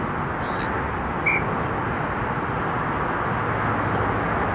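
Steady outdoor background noise of the kind traffic and wind make, with one short high-pitched tone about a second in.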